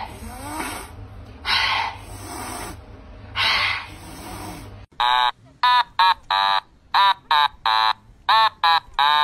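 A domestic cat hissing three times, open-mouthed with fangs bared. About five seconds in, a quick, uneven run of short high-pitched beeps follows.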